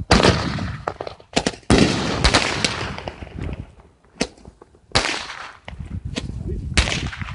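Fireworks going off: a run of sharp, irregular bangs and pops, about ten over seven seconds, some trailed by a hissing crackle.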